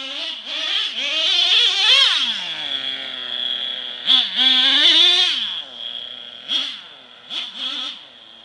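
Traxxas Revo nitro RC truck's small two-stroke glow engine revving in repeated bursts, its pitch sweeping up and falling back to idle between them, with a steady high whine underneath.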